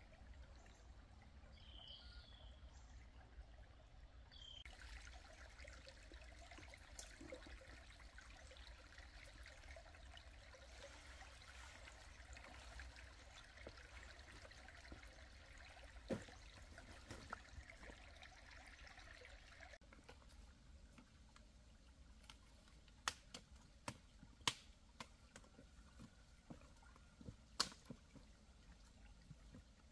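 Faint trickling of a stream that starts and cuts off abruptly, followed by a few sharp, isolated knocks in the last third.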